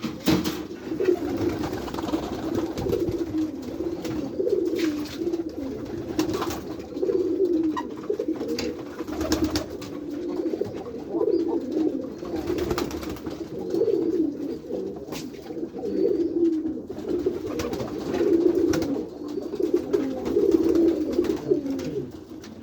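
Many domestic pigeons cooing together in a loft, a continuous overlapping warble, with scattered knocks and clatters.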